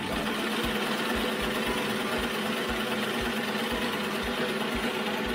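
1948 Singer 15-90 electric sewing machine running steadily at speed while stitching fabric: a dense, even whirr with a steady hum.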